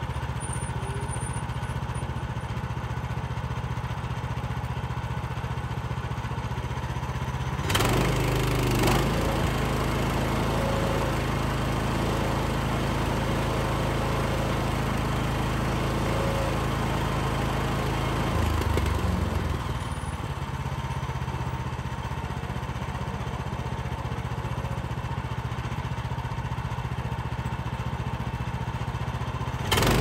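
Kohler gas engine of a Woodland Mills HM126 bandsaw sawmill running steadily. About eight seconds in it gets louder and noisier for about ten seconds, then settles back to its earlier steady note.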